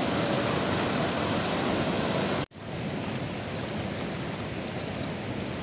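Rushing river rapids: a steady wash of whitewater over rocks. The sound cuts out abruptly about two and a half seconds in and comes back a little quieter.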